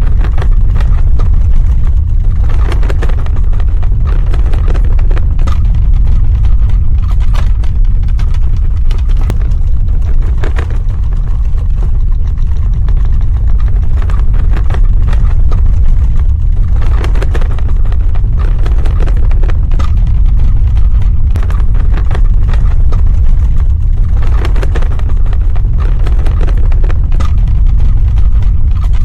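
Earthquake sound effect: a loud, steady deep rumble of the ground, with scattered crackles and a few swelling grinding surges over it.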